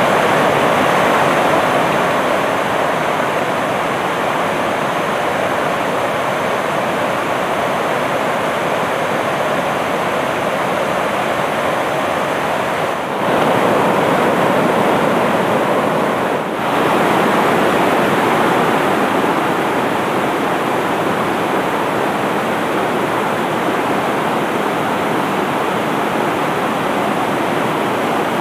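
River rapids: shallow water rushing steadily over and between boulders, a loud, even wash of water noise that dips briefly twice midway.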